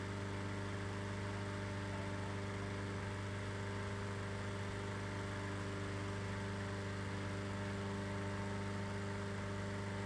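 Hot-air balloon inflator fan running steadily, an even engine hum as it blows cold air into the balloon envelope during cold inflation.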